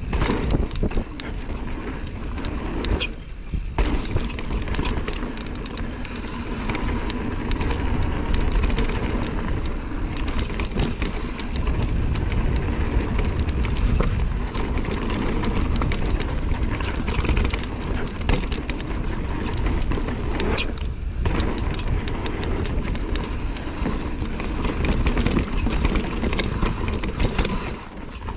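Mountain bike running fast down a dirt bike-park trail: tyres rolling over the dirt and the bike rattling over rough ground, with a heavy low rumble of wind on the microphone. The noise drops away briefly about three seconds in and again about twenty-one seconds in.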